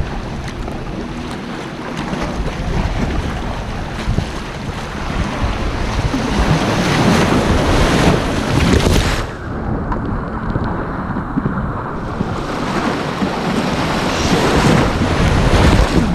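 Ocean waves surging and washing through rocks, with wind buffeting the microphone. The water swells louder twice, about seven seconds in and again near the end.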